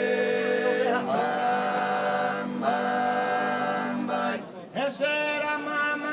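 Group of men singing a cappella in close harmony in the Sardinian canto a tenore style: a low steady drone under held chords that shift every second or so, with a higher lead voice wavering over them near the end.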